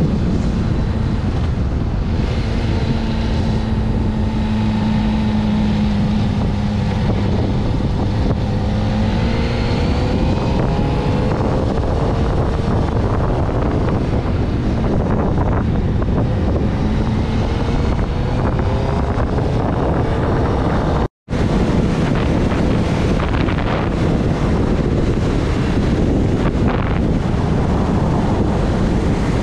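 Loud wind rush on the microphone of a moving sport motorcycle, with the engine's note underneath rising and falling in pitch as the throttle changes. The sound cuts out abruptly for a split second about two-thirds of the way through, then resumes the same.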